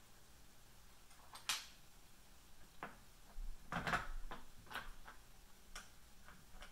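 Scattered light clicks and taps of small metal hardware, such as screws and bearing wheels, being handled and fitted on a CNC router's aluminium frame. There is one sharp click about a second and a half in and a busier cluster of clicks and knocks around four seconds in.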